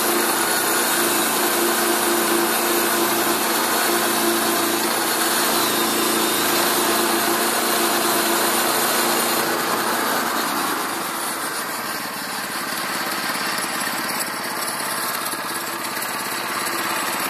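Portable bandsaw mill driven by a Kohler gasoline engine, running under load as the band blade saws through a hardwood log. About ten seconds in the sound becomes quieter and the steady low tone fades, while the engine keeps running.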